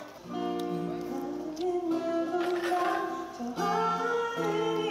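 A busker's live song: a voice singing held notes over strummed acoustic guitar.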